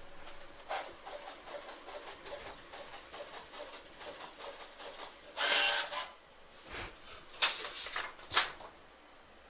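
Desktop printer at work on a page: irregular soft rustles and clicks, a louder paper rustle about five and a half seconds in and two sharp clicks near the end.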